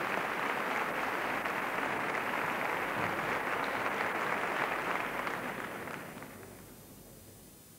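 Audience applauding steadily, then dying away about six seconds in.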